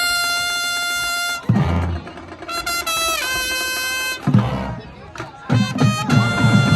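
Band music: brass instruments hold long chords, broken by low drum hits twice, with quick drumming starting near the end.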